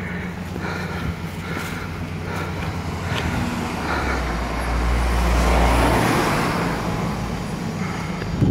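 Road traffic: a car engine running close by with a steady low hum, and a vehicle passing that swells loudest about four to six seconds in.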